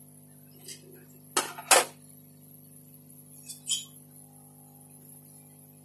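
Sharp metallic clicks from metal parts being handled on a motherboard bench: two close together about a second and a half in, and a smaller one a couple of seconds later, over a steady low electrical hum.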